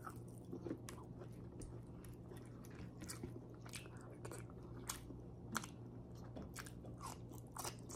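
Close-up eating sounds: biting and chewing grilled pork chop, heard as scattered soft wet clicks and smacks from the mouth, over a faint steady low hum.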